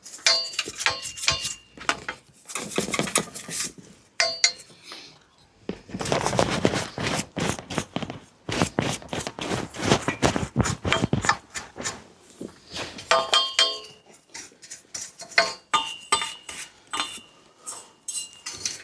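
Small loose metal parts clinking and rattling, with a stretch of quick brush strokes in the middle as they are swept up with a dustpan and brush.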